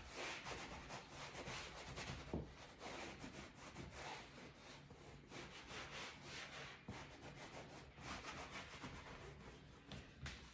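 Cloth rubbing over leather couch upholstery in faint, repeated wiping strokes, working in a leather cleaner and protectant.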